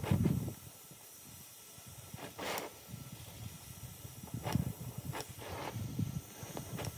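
Oxy-acetylene torch flame hissing steadily against steel plate. A low thump comes right at the start and a few softer ones follow.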